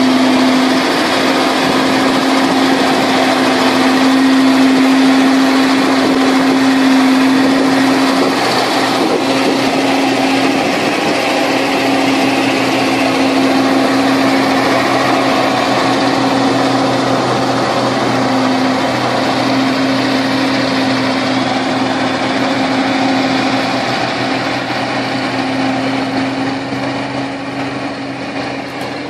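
Ural 6x6 truck's diesel engine running steadily under load as the truck crawls through deep mud, a strong even hum that fades a little near the end.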